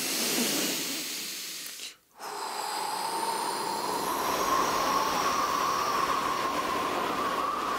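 Cartoon sound effect of the wolf blowing at a wooden house: a rush of breath, a brief break about two seconds in, then a long steady gust of wind with a whistling tone.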